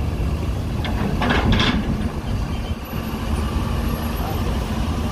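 Tour bus engine running as the bus drives slowly up the ferry's vehicle ramp, a steady low rumble, with a short hiss about a second in.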